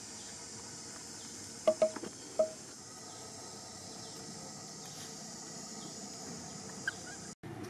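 Steady high chorus of insects, with three short sharp clicks about two seconds in. The sound cuts out for an instant near the end.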